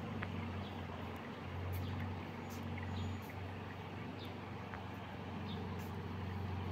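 A steady low mechanical hum over a soft noisy background, with scattered faint high chirps and clicks.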